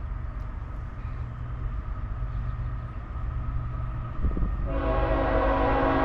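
Lead locomotive's air horn, a CSX GE ET44AH on an approaching freight, sounding a held chord of several tones. It starts suddenly near the end over a low steady rumble.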